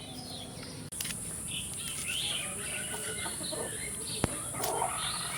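Birds chirping, with a chicken clucking near the end, over a steady high-pitched insect buzz that starts about a second in. A single sharp click is heard about four seconds in.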